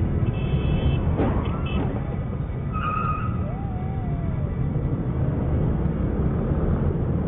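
Steady low rumble of traffic and idling scooter engines at a busy intersection, with a faint knock about a second in and a brief steady tone about three seconds in.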